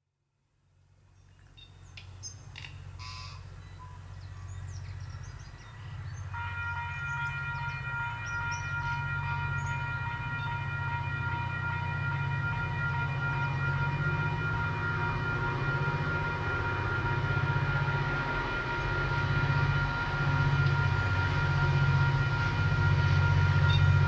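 KiwiRail DFT and DXB class diesel-electric locomotives working hard under a maximum-weight train on a steep grade, their low engine rumble building steadily as they approach. From about six seconds in a level crossing alarm rings steadily over it.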